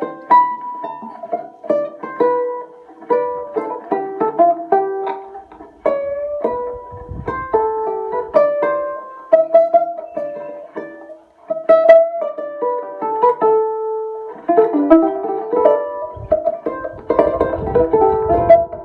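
A homemade plucked string instrument being played: a quick melodic run of single plucked notes, each ringing briefly. A low rumble sits under the notes twice, once around the middle and again near the end.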